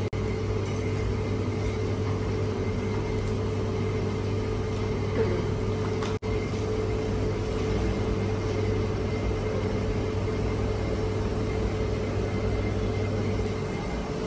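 A steady low mechanical hum with a fainter steady drone above it, unchanging throughout; it cuts out for an instant about six seconds in.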